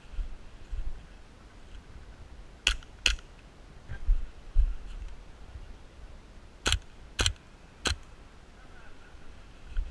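Airsoft rifle firing single shots: two sharp cracks about three seconds in, then three more a half-second or so apart near the seven-second mark. Between them come dull low thumps of footfalls in dry leaf litter.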